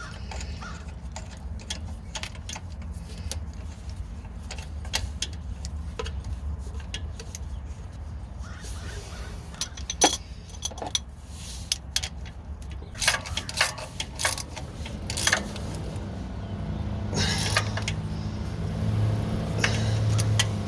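An engine running steadily, with sharp metallic clinks and taps of tools or keys over it. The engine note grows louder and fuller over the last few seconds.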